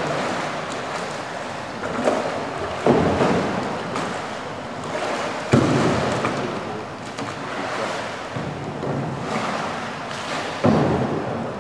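Pool water splashing and sloshing as a kayak is capsized and rolled back upright, with sudden louder splashes about three seconds in, about five and a half seconds in, and near the end.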